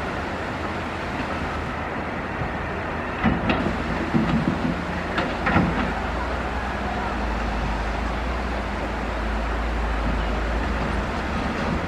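Hydraulic excavator working, its diesel engine running steadily. Several knocks and clanks come between about three and six seconds in, as the bucket works through sand and gravel, and the engine's low rumble grows stronger from about six to eleven seconds in.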